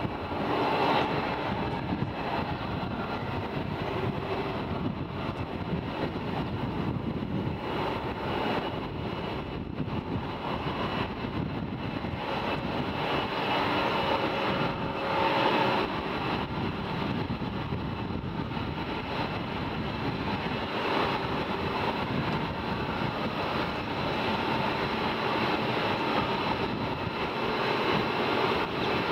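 Lockheed Martin F-22 Raptor's twin Pratt & Whitney F119 turbofans running at taxi power as the jet rolls along the taxiway: a steady jet rumble with a thin, steady whine over it.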